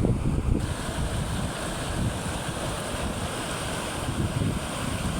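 Wind buffeting the microphone in uneven low rumbles over a steady rushing noise; the higher hiss picks up about half a second in.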